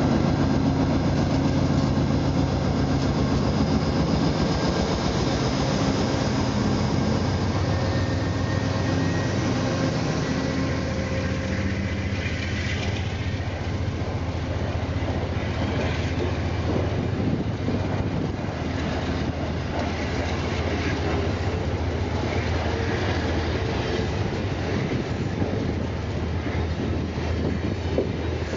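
Diesel-hauled passenger train departing: the locomotive's engine runs under load for about the first ten seconds, then the coaches roll by with a steady clickety-clack of wheels over rail joints and a faint wheel squeal.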